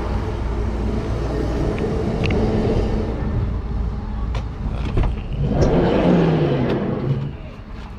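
A vehicle engine idling with a steady low rumble, over which a campervan's sliding side door is unlatched with a couple of sharp clicks about four and a half seconds in and slid open.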